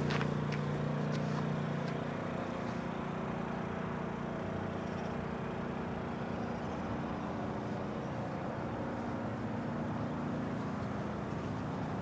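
Steady engine hum from an idling vehicle.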